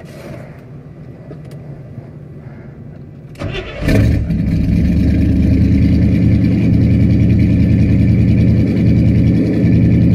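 Carburetted V8 of a C3 Corvette, heard from the driver's seat, cranking briefly and catching about four seconds in, then running steadily at high idle with the choke set. It runs well enough for the owner to call it better and put the trouble down to the choke.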